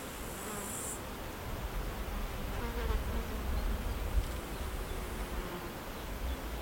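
A flying insect, a fly or bee, buzzing close past the microphone for a few seconds, louder in the middle, over a faint background of reed-bed birds.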